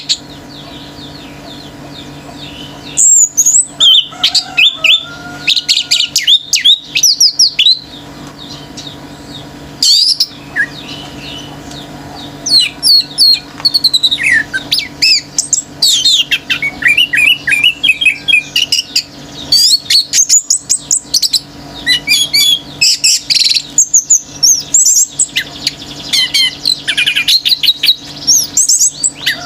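Orange-headed thrush singing a loud, fast, varied song of sliding whistles and rapid chattering trills, delivered in bursts with short pauses between phrases.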